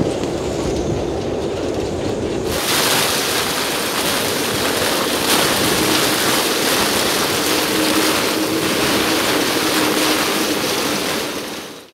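Storm-force wind buffeting the microphone with a low rumble and waves breaking at the harbour mouth; about two and a half seconds in, it switches abruptly to a loud hiss of wind-driven rain lashing a yacht's deck, with a faint steady tone joining in for a few seconds. The sound fades out just before the end.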